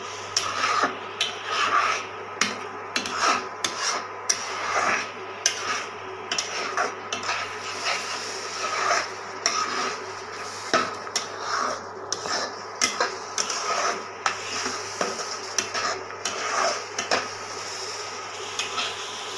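A spoon scraping and stirring thick carrot halwa against the bottom and sides of a steel pot, in repeated strokes about once or twice a second, as the halwa thickens near the end of cooking. A steady low hum runs underneath, and the strokes thin out near the end.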